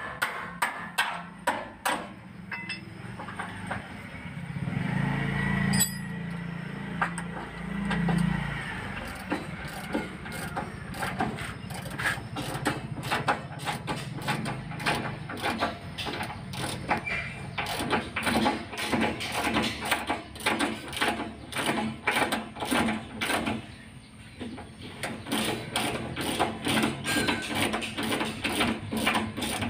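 Ratchet wrench clicking in long runs of quick strokes while a bolt on the engine mount is turned, with a short pause about three-quarters of the way through. A low hum sounds from about five to eight seconds in.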